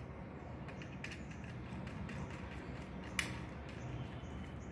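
Small screwdriver working the screw terminals of a modular switch, with faint creaking and clicking as a wire is clamped, and one sharp click about three seconds in.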